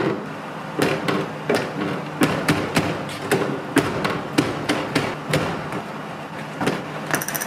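A series of sharp knocks and thuds, irregular, about two or three a second, over a faint low hum.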